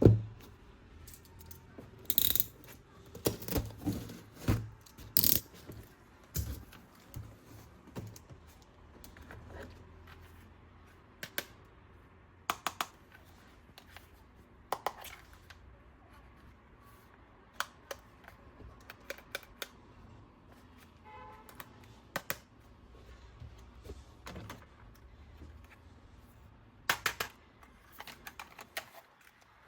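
Plastic toys and packaging being handled, making scattered clicks and taps at irregular intervals, with a busier run of them a few seconds in.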